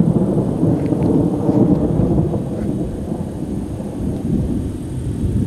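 Thunder rumbling, loudest in the first two seconds or so and then slowly dying away.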